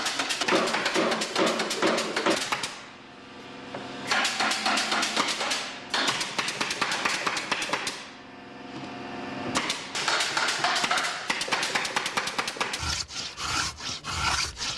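Beehive parts being hammered or nailed together: a rapid run of knocks, several a second, that stops briefly twice.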